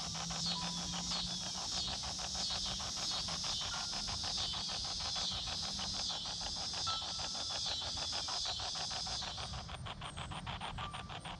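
Spirit box app sweeping through radio channels: choppy static that pulses rapidly and evenly, with a repeating hiss over it that stops shortly before the end.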